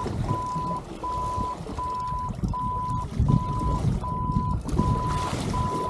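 An electronic alarm beeping steadily and evenly, a little over one beep a second, each beep a short held tone, over a low rumble of the boat.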